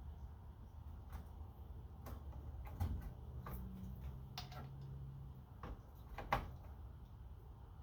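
Scattered light clicks and knocks of hand tools and metal parts being handled on a workbench, the loudest about six seconds in, over a low hum.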